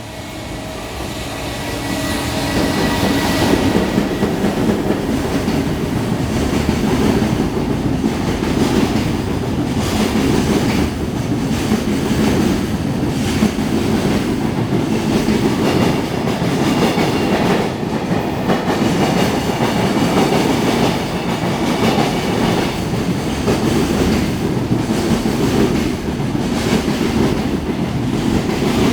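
Freight train passing, growing louder over the first few seconds and then running on steadily: a heavy rumble of wagons with the wheels clicking over rail joints.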